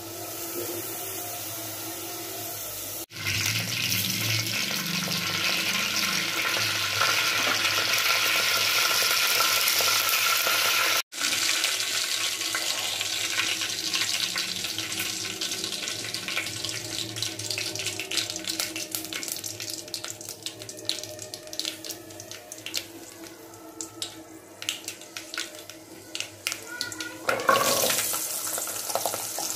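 Cooking oil heating in an aluminium pot over a gas burner: a steady hiss that turns to spitting and crackling. Near the end there is a louder sizzle as small shallots go into the hot oil and begin to fry.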